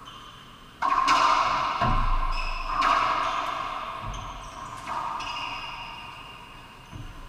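Racquetball rally: the ball cracking off racquets and the court walls in about five sharp hits, one to two seconds apart. Each hit rings on in the enclosed court.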